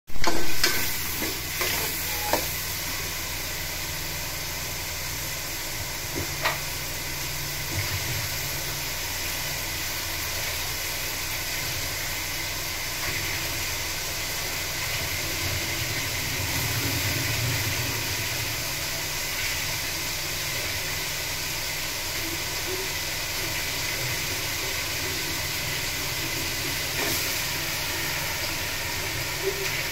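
Potato pieces frying in hot oil in a metal pot: a steady sizzle, with a metal ladle clicking against the pot a few times in the first several seconds. Near the end the sizzle flares briefly as raw chicken pieces go into the oil.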